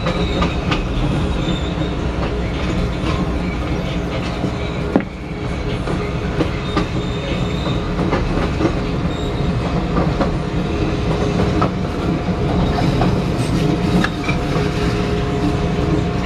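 A 1992 Morrison-Knudsen 3200-series CTA rapid-transit car running along the track, heard from inside the car: a steady rumble with clicks of the wheels over rail joints, a sharp clack about five seconds in, and a few brief high wheel squeals.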